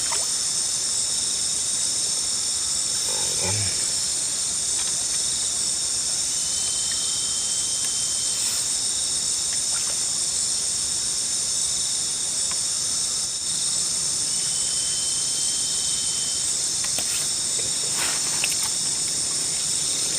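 Steady, high-pitched chorus of night insects in several layered bands. A thinner, lower trill comes in three times for about two seconds each, with a few faint clicks.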